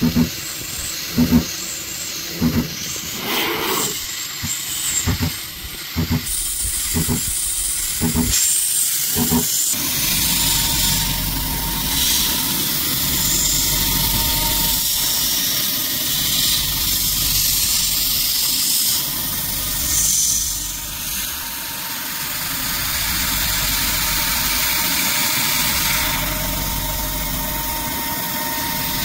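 A PrintNC Pro CNC router spindle milling 6061 aluminium with an end mill, with a hiss from the coolant nozzle aimed at the cutter. For the first third the cut comes in short regular pulses about once a second. After that it settles into a steady cutting noise with a constant whine through it, as the 2D contour is cut around the part.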